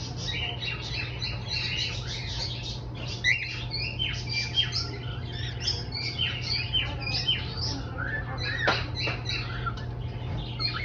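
Cockatiel chattering in a rapid, continuous run of short chirps and squawks, with one sharp falling call late on. A steady low hum sits underneath.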